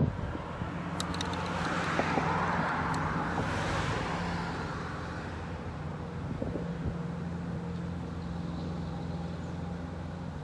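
Road traffic: a vehicle passes by, its tyre and engine noise swelling from about one second in and fading away by about five seconds, over a steady low hum. A brief knock sounds at the very start.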